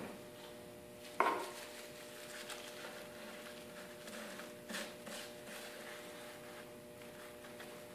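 Scrap-wood glue spreader scraping and tapping on plywood while spreading urethane glue, with a sharp knock about a second in and a softer one a little past halfway. A steady faint hum underneath.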